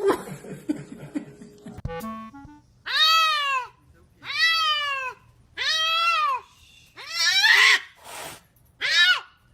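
A domestic cat meowing loudly and repeatedly: five long, drawn-out meows, each rising and then falling in pitch, coming about every second and a half.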